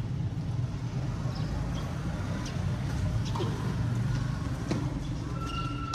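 Tennis balls being struck and bouncing on a hard court: a few sharp, irregular knocks over a steady low rumble.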